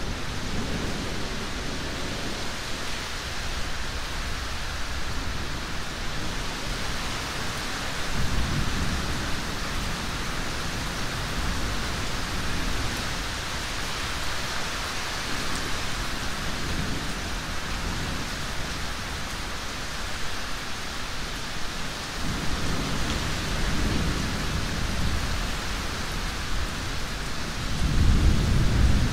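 Steady heavy rain, with low rolls of thunder that swell and fade several times; the strongest comes near the end.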